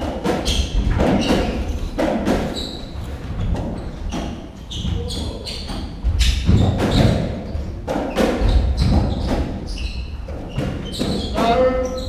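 A racketball rally on a squash court: repeated sharp smacks of the hollow ball off rackets and the walls, mixed with short high squeaks of shoes on the wooden floor, ending near the close with a voice.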